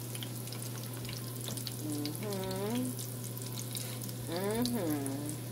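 Panko-breaded shrimp deep-frying in oil in a cast-iron skillet on low heat: a steady sizzle with a fine crackle.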